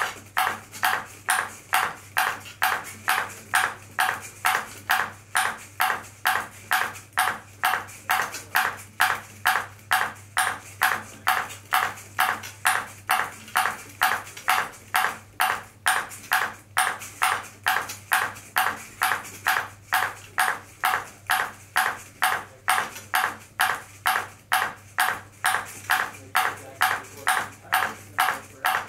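Ping pong ball bouncing on a robot's paddle in a steady, even rhythm of sharp plastic clicks, just under two bounces a second, with no misses, over a faint steady low hum.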